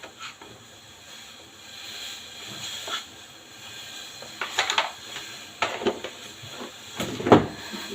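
Herbal decoction (kadha) heating in a pot on the stove, a steady hiss, with a few knocks and clinks of utensils on the pot, the loudest about seven seconds in.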